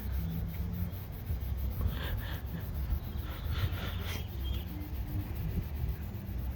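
Hand rubbing scratch-repair compound into a truck's painted body panel with firm back-and-forth strokes, a rasping, scuffing sound over a steady low rumble.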